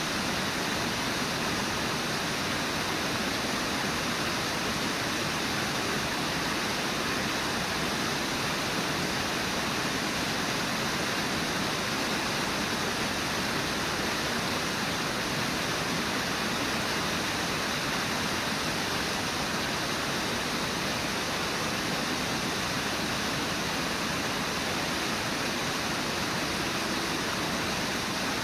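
Water pouring over Brooks Falls on the Brooks River, a steady, unbroken rush with no other event standing out.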